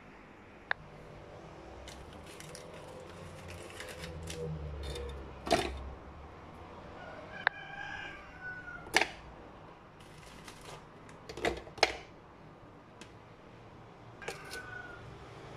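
Oreo cookies dropped into the plastic bowl of a small electric chopper, giving sharp clicks and knocks, with rustling of the cookie packet. A rooster crows once in the background about halfway through.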